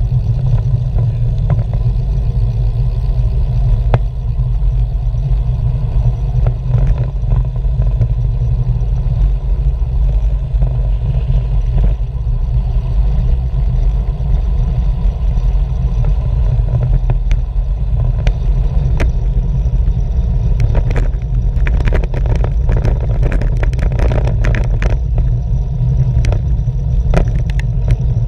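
Wind buffeting the microphone of a camera mounted on a moving road bicycle: a steady deep rumble, with clicks and rattles from the bike and road surface that become frequent in the last third.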